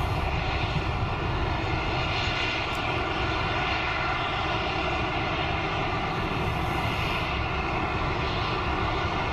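Helicopter running on its landing pad: a steady engine and rotor drone that holds even and unbroken.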